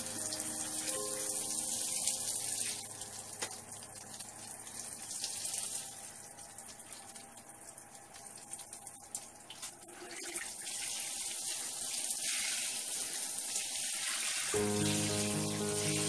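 Water running and splashing onto wet bathroom floor tiles, a steady hiss that fades somewhat in the middle and grows again. Background music plays over it at the start and comes back suddenly near the end.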